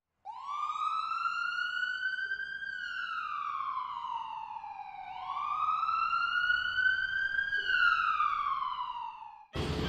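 Siren wailing in two slow cycles, each rising in pitch, holding briefly, then falling. It cuts off abruptly just before the end, when music starts.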